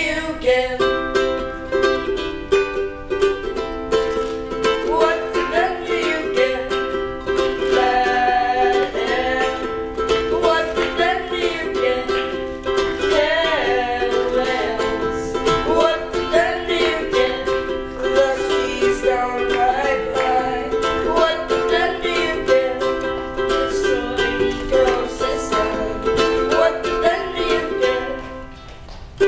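Ukulele strummed in steady chords under sung vocals, a protest song performed live; the music eases off briefly near the end.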